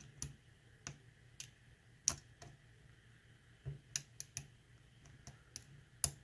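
Lock pick and tension wrench working the pins of a pin tumbler lock during single-pin picking: a dozen or so small, sharp, irregular clicks as the pick lifts and tests each pin.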